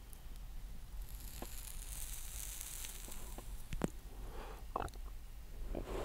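Someone drawing on a cigarette: the burning tip crackles and hisses for about two seconds. A couple of soft clicks follow, and an exhaled breath begins near the end.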